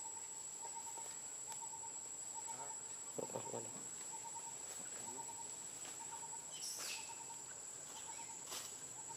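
Outdoor tree ambience: a steady high-pitched insect drone with a bird calling over and over in short pulses. A brief louder low sound about three seconds in, and a short high squeak near seven seconds.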